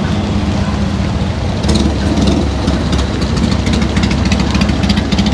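Vehicle engines idling and creeping along in a queue, a steady low rumble. From about two seconds in, a motorcycle engine passing close by adds a rapid, uneven clatter of sharp firing pulses.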